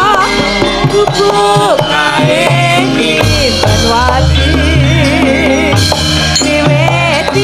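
Javanese gamelan song: a sinden singing with a wide vibrato and sliding pitch, over hand-drum strokes and gamelan percussion.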